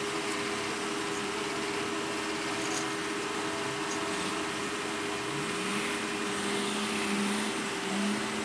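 Off-road four-wheel-drive's engine running; its revs climb about five seconds in and hold high, over a steady background hum.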